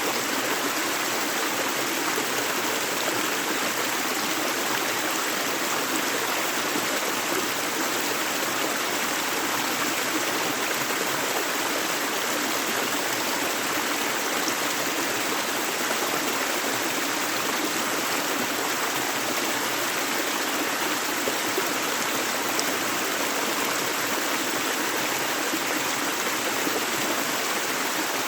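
Steady rush of a flowing river or stream, an even water noise without breaks.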